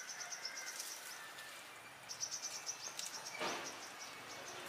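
Insects chirping in fast, high-pitched pulsed trills, twice, with a brief rustling hiss near the end.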